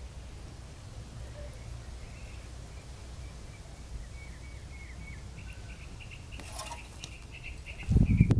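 Small birds chirping faintly over a steady low rumble, with one sharp click a little past the middle and loud low bumps near the end.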